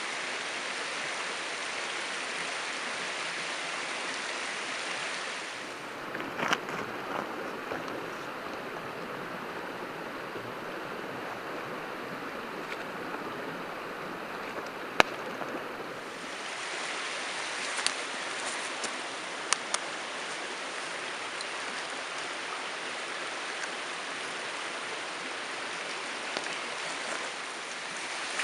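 Steady rushing of a mountain stream, with a few sharp clicks now and then.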